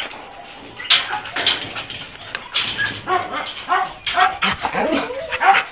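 Several kennelled dogs barking and whining, a dense string of short barks and yelps that starts about a second in.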